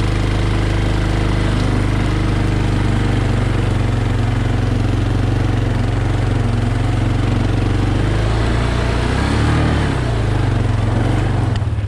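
ATV engine running steadily under load while it tows a heavy chained tree limb. About nine seconds in the engine note rises and falls, and just before the end it drops back sharply toward idle.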